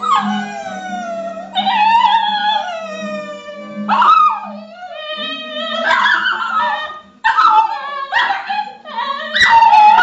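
Several basenjis howling along to a TV theme tune: long wavering howls that slide down in pitch, followed in the second half by shorter, choppier howls that overlap each other, the loudest near the end. The tune's steady notes fade out about halfway through.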